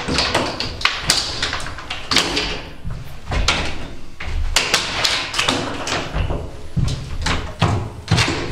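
Irregular knocks, taps and scraping from hand work on the panelled walls of an empty truck box body, as old fittings are pulled and worked off the wall.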